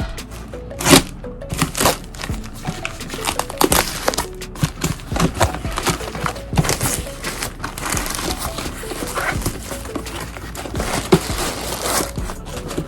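Packaging being opened by hand: crinkling and rustling with many quick clicks and knocks, over background music.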